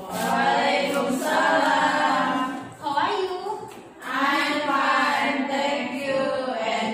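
Several voices chanting together in unison, unaccompanied, in long held phrases with a short break about three seconds in.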